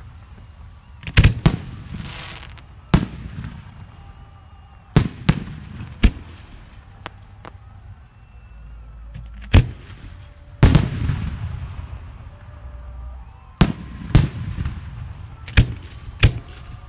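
Aerial fireworks display shells booming, about a dozen sharp reports at uneven intervals, some in quick pairs, each followed by a rolling echo.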